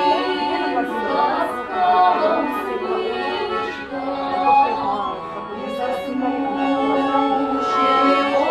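Two women singing a folk song into microphones, accompanied by an accordion.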